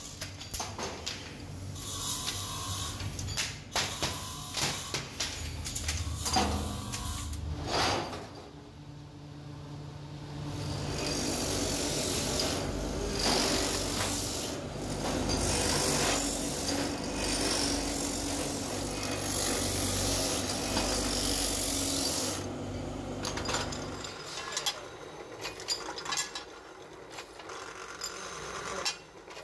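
Metal brake-shoe parts clicking and clattering as they are handled, then a workshop machine running steadily for about ten seconds with a low hum and a hiss, then scattered clicks again.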